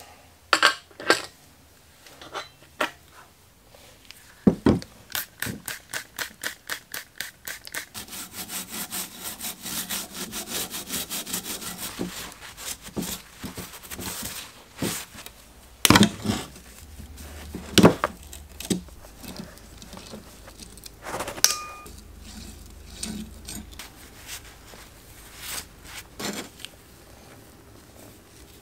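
A rag scrubbing back and forth over greasy bicycle parts, the bottom bracket shell and the crankset's chainrings, in a fast even rhythm for several seconds. Metal parts knock sharply against a wooden workbench a few times about halfway through, with lighter clinks as the crank is handled.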